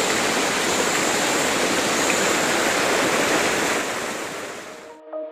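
Dainthlen Falls rushing, a steady noise of falling water close by. It fades away in the last second or so as music begins.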